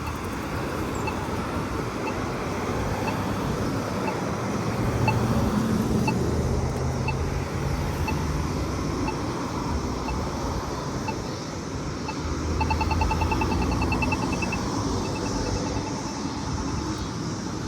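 Polara iNS2 accessible pedestrian signal push button ticking about once a second, then, about two-thirds of the way in, switching to rapid ticking for about two seconds before going back to the slow tick. The rapid tick is the walk indication on these signals. Road traffic runs underneath.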